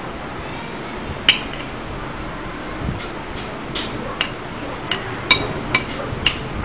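Metal spoon and fork clinking and scraping against a plate while scooping rice: one sharp clink about a second in, then a run of short ringing clinks about every half second from about three seconds on.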